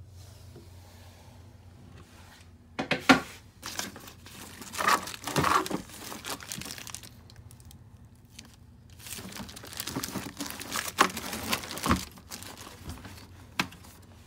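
Clear plastic wrapping crinkling as it is handled on a marine display unit, in two irregular spells of crackling with a few sharp clicks, over a faint steady low hum.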